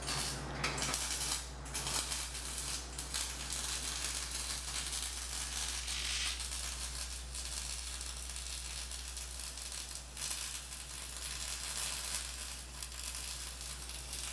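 Arc welding on quarter-inch-wall 4x4 steel square tubing: the arc crackles and hisses steadily while running a weld bead.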